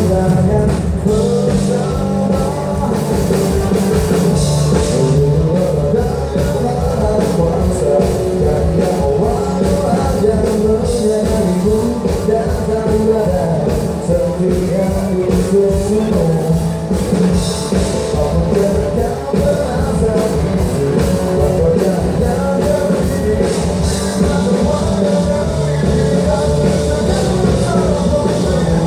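Rock band playing live, with a sung lead vocal over drums and guitars.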